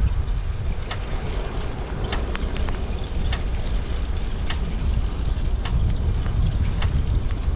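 Wind buffeting the microphone of a head-mounted camera while riding, a steady low rumble with scattered sharp ticks over it.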